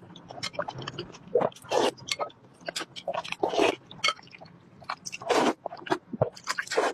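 Close-miked eating: wet chewing and smacking with several loud slurps of glass noodles from a bowl of chili broth.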